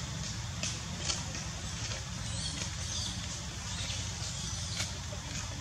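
Steady outdoor background noise with a low rumble, broken by a few faint, sharp crackles spaced irregularly about a second apart.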